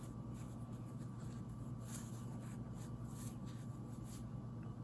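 Faint, scratchy rustles of quilt fabric being handled, a few separate soft brushes, over a steady low electrical hum.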